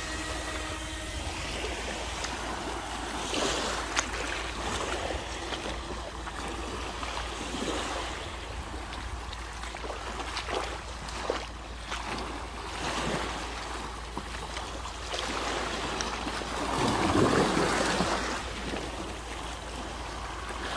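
Sea surf washing onto the shore as a steady noisy hiss, with one louder wave swelling and falling away near the end, and a few sharp clicks.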